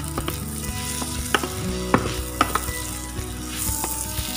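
Mee sua noodles and bean sprouts stir-frying in a hot pan: a steady sizzle, with a wooden spatula scraping and knocking against the pan now and then.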